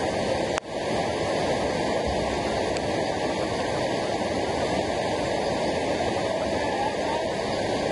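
Waterfall rushing water: a steady, loud roar of falling water, with a brief dip and click about half a second in.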